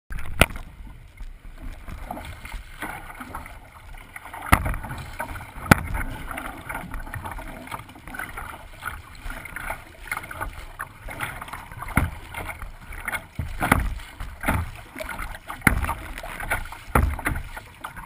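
Choppy waves splashing and slapping against a small plastic kayak's hull, with a continuous rush of water and several sharp knocks at irregular intervals.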